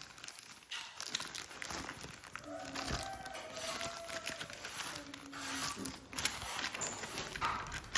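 Crinkling and rustling handling noise with scattered small clicks, as of packaging or material being handled.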